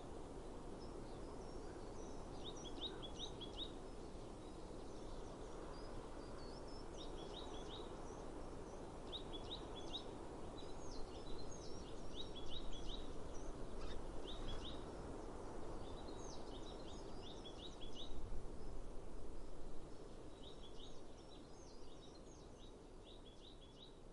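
A songbird singing outdoors, repeating short phrases of a few quick, high notes every couple of seconds, over a steady low rushing of outdoor ambient noise.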